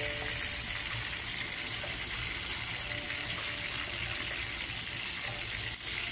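Hot oil sizzling steadily in a frying pan around fried milkfish (bangus) steaks, with a few light clinks as tongs lift the pieces out onto a plate.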